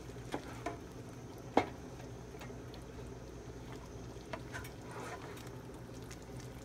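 A silicone spatula stirring thick chicken curry in a nonstick pan: soft scrapes and a few knocks against the pan, the loudest about one and a half seconds in. A steady low hum runs underneath.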